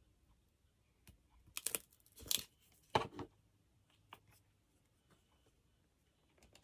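Scrap paper strips being handled and torn: three short papery bursts close together in the middle, with a few light clicks and taps around them.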